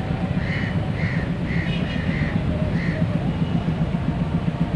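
Pakistan Railways GRU-20 diesel-electric locomotive's engine running with a steady low rumble as it creeps toward the station. Over it a crow caws about six times in quick succession in the first three seconds.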